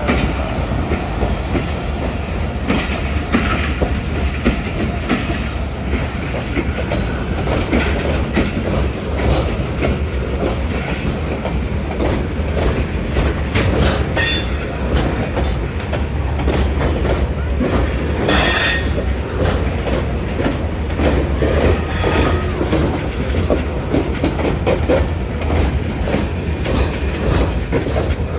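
Train running on the rails: a steady rumble with the clicking of wheels over rail joints, and a short high squeal about two-thirds of the way through.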